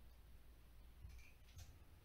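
Near silence, with a couple of faint clicks about a second in and again half a second later from a hand tool working the wire cores of a fire-alarm cable.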